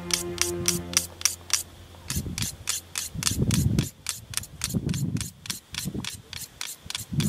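A steel knife blade drawn quickly and repeatedly through a small handheld knife sharpener, an even run of short scraping strokes at about four a second.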